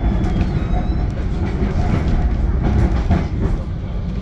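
GT6NU low-floor tram running along its track, heard from inside the car: a steady rumble of wheels on rail with scattered clicks and clatter over the rail joints.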